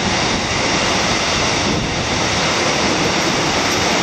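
X'Trapolis electric suburban train passing close below, a steady loud rushing noise with no distinct clicks or tones.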